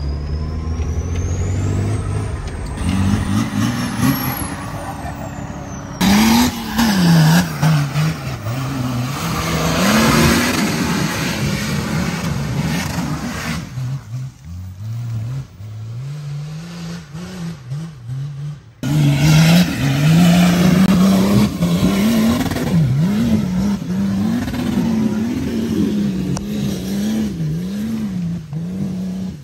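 Nissan Patrol's swapped BMW M57 straight-six turbodiesel revving hard under load, its pitch rising and falling again and again, with the tyres spinning in loose dirt on a steep climb. The first few seconds are heard from inside the cab.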